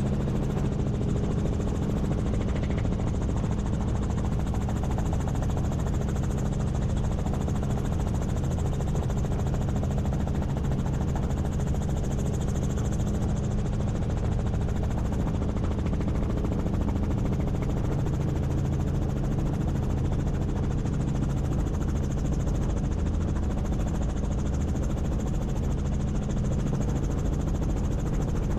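Helicopter in flight, heard from on board: a steady drone of rotor and engine with a constant low hum.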